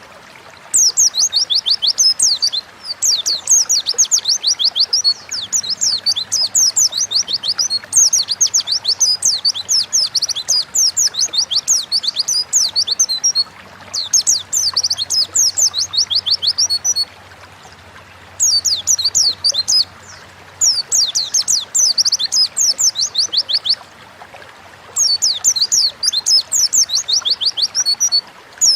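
White-eye (pleci) singing in a long, fast run of high, downward-slurred chirps. The song comes in bouts of a few seconds broken by short pauses.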